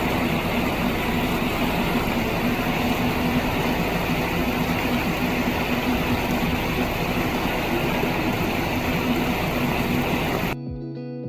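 Loud, steady rushing noise with a low hum under it, cut off abruptly about ten and a half seconds in by plucked guitar music.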